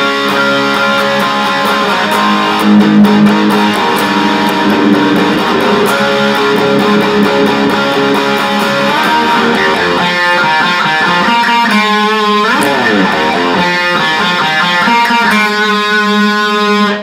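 Electric guitar tuned down a half step to E flat, played with a pick in strummed chords, with a slide down the neck about twelve seconds in; the playing stops abruptly at the end.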